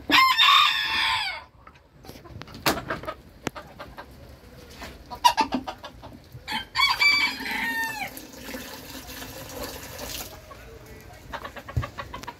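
A booted bantam rooster crows, loud and high, for about a second and a half at the start. Hens cluck and call in between, and a second run of calls with falling notes comes about seven seconds in.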